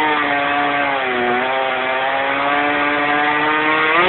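Chainsaw running at full throttle while cutting a tree limb. Its pitch dips briefly about a second in, then holds high, and it drops back toward idle at the end.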